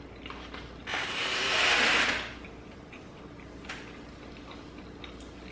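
A plastic fork clicking and scraping in a plastic takeout food bowl as a bite is scooped up. About a second in comes a loud breathy hiss that swells for about a second and cuts off, followed by faint chewing.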